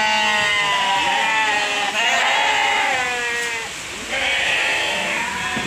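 Sheep in a pen bleating: three long, wavering calls one after another, the last coming in after a short pause about four seconds in.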